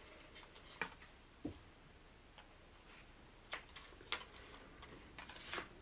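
Faint, scattered clicks and crinkles of a small lure package being handled as a tiny soft-plastic crawfish lure is worked out of it, a few light clicks a second or so apart.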